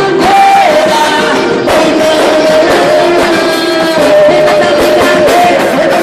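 A band playing a song: a sung melody with held, sliding notes over instrumental accompaniment and a steady beat.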